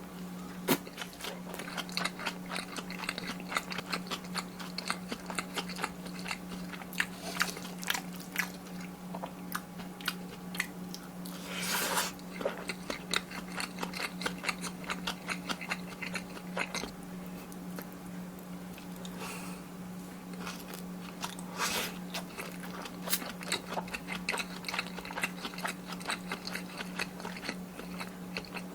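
Close-miked eating sounds of kimchi fried rice: continuous chewing and wet mouth sounds with many short sharp clicks, and a couple of louder swells about 12 and 22 seconds in. A steady low hum runs underneath.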